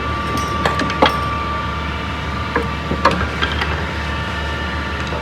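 Car-repair workshop noise: a steady low machine hum with a handful of sharp metallic clinks and knocks from tools on car parts, most in the first four seconds.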